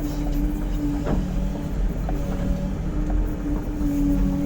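XCMG 335 excavator's diesel engine running under load with the hydraulics working. Over it comes a long, steady squeal, broken off after a click about a second in and starting again near three seconds. This is the creak of the stick, which the operator takes to be most likely a dry pin.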